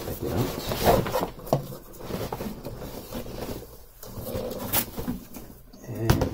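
Rustling of a cloth cover being pulled off a desktop 3D printer, with irregular knocks and bumps from handling the printer's casing, and a sharper knock near the end.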